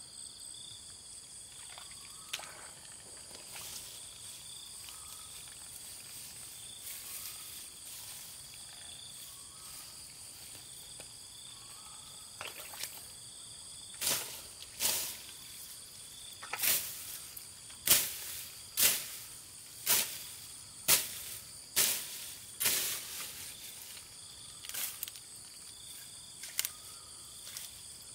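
Steady insect chirring, with a run of about a dozen sharp chopping strokes starting about halfway, roughly one a second: a bladed tool hacking through ferns and undergrowth.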